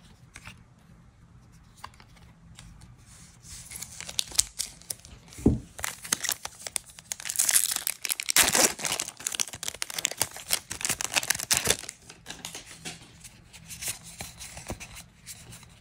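Foil wrapper of a Magic: The Gathering collector booster pack being torn open and crinkled by hand, a crackling tear that starts about four seconds in and is loudest in the middle. Softer rustles of the cards being handled follow near the end.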